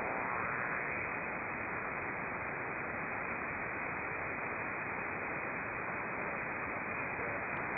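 Steady hiss of an HF shortwave radio receiver in single-sideband mode with no transmission on the channel: even static and no tones.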